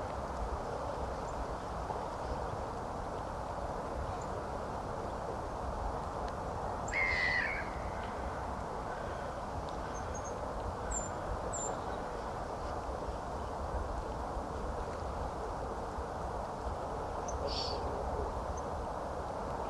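Riverbank ambience: a steady rushing background, with one loud short bird call about seven seconds in, a few faint high chirps a few seconds later, and another short bird call near the end.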